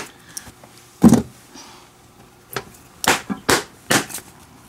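Sharp smacks on a leather baseball glove, a Wilson A2K, as the freshly relaced glove is worked by hand: one loud smack about a second in, then a run of quicker strikes, about two a second, near the end.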